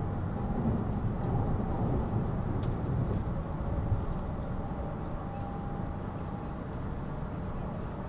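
Running noise inside a JR East E259 series Narita Express carriage: a steady low rumble of wheels on rail, with a faint thin tone coming and going. It eases slightly in the second half.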